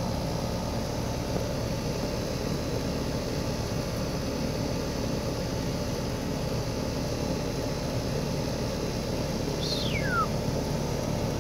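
Outdoor air-conditioner condenser unit running, a steady fan and compressor hum. Near the end a single high note slides downward.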